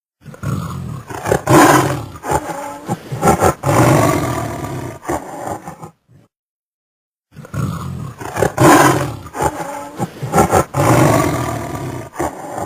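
A big cat roaring, a run of loud calls about six seconds long, played twice over with about a second of silence between.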